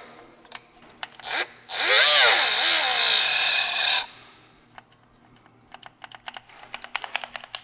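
Cordless power tool running for about two seconds, its motor pitch wavering, then cutting off suddenly as the battery dies. A run of faint clicks follows near the end.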